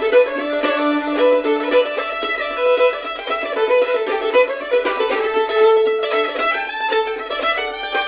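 Fiddle and mandolin playing an old-time fiddle tune together: the bowed fiddle carries the melody while the mandolin picks along with it.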